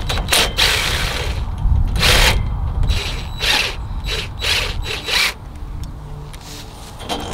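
Cordless drill run in a string of short bursts to back a bolt out of a wooden hip board and steel hoop pipe.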